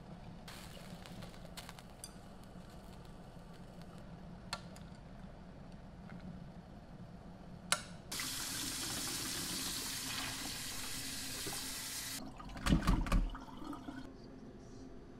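Water rushing into a stainless steel kitchen sink for about four seconds as blanched yu choy is drained in a mesh strainer, followed by a few loud clunks in the sink. Before that, a faint steady hum with a few light clicks while the greens blanch in a steel pot.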